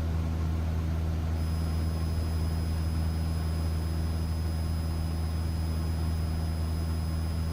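Cessna 172's piston engine and propeller droning steadily in level cruise. A faint, thin high-pitched tone comes in about a second in and holds steady.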